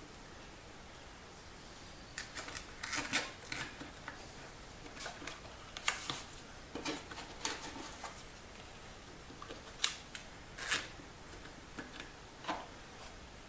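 Scattered light clicks and rustles of small parts or tools being handled on a workbench, irregular and starting about two seconds in.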